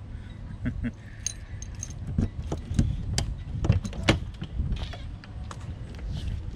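A bunch of keys jangling as the camper's locked exterior storage compartment is unlocked and its hatch opened, with a string of sharp clicks and knocks from the latch and handling, over a steady low rumble.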